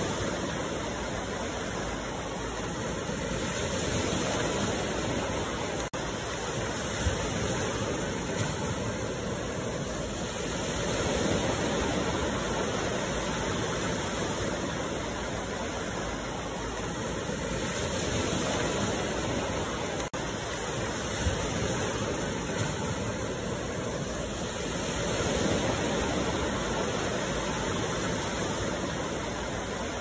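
Small sea waves breaking and washing up a sandy beach: a steady surf hiss that swells and fades about every seven seconds.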